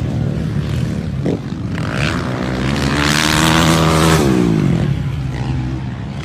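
Motocross dirt bike engines revving on the track, the pitch climbing to a peak about four seconds in and then falling away.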